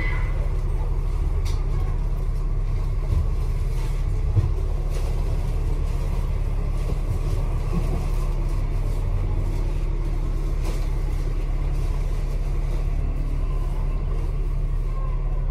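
Bus engine idling with a steady low rumble while the double-decker stands at a stop, heard from the upper deck, with a couple of light knocks about three and four seconds in.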